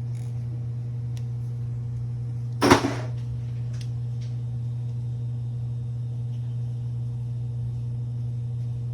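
Steady low hum, with one short, loud clatter a little under three seconds in and a few faint clicks.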